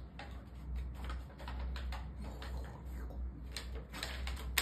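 Scattered light clicks and taps, a few in quick succession in the second half, over a low steady hum.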